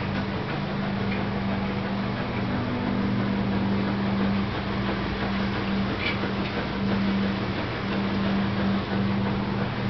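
A steady mechanical hum, a low drone over an even rushing noise, without a break.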